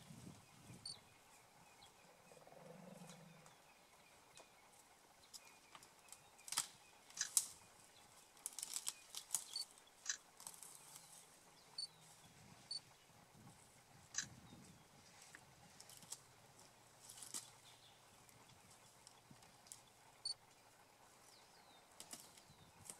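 Mopane twigs snapping and cracking as an African elephant strips them from a branch with her trunk: a dozen or so sharp, irregular snaps, thickest a few seconds in. A short low rumble sounds about three seconds in.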